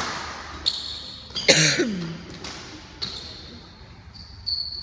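A badminton rally: rackets striking the shuttlecock about six times, sharp cracks that echo in a large hall, the first the loudest.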